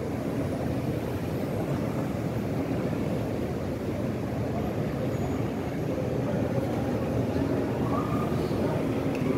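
Steady murmur of a large crowd echoing in a big mosque hall, heard as a low continuous rumble with no single voice standing out.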